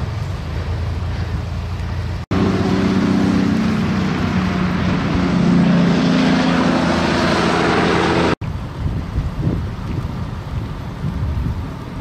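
Road traffic in a blizzard: vehicles running on a snow-covered highway with wind and road hiss. After about two seconds an abrupt cut brings a louder stretch of heavy trucks, with an engine drone under a broad hiss. A second abrupt cut, about eight seconds in, drops back to a quieter vehicle and wind background.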